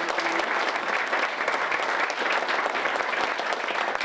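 Audience applauding: many hands clapping in a dense, steady patter that holds at an even level.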